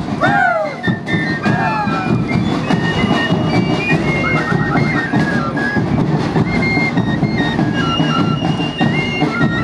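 Andean festival band music: flutes playing a stepping melody of held notes with quick trills, over a steady drum beat and the noise of the street procession.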